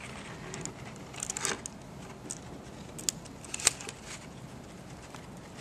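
Paper rustling and crinkling as a paper model canoe is handled and clear tape is pressed onto it, with a few short sharp ticks, the loudest a little past halfway.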